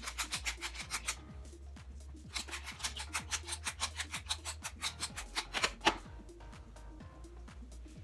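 Hand-turned pepper mill grinding, a quick ratcheting rasp of about six strokes a second, in two runs: a short one at the start and a longer one from about two and a half seconds in to about six seconds.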